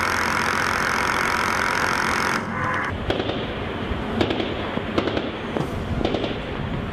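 A steady noise for the first couple of seconds, then a run of irregular sharp cracks and pops.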